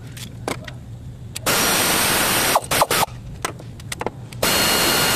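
Pneumatic tool running in two bursts of about a second each, an even hiss with a faint steady whine, with a few light metal clicks between.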